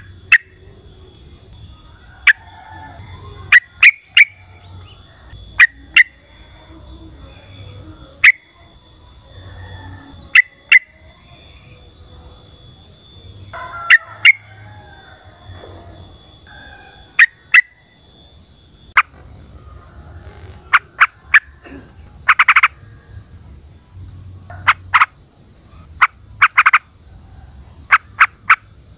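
Yellow-vented bulbul (trucukan) calling: short, loud, sharp notes at irregular intervals, with a few longer bubbly phrases around the middle and again past twenty seconds. Behind it a high insect chorus pulses in repeated short trains.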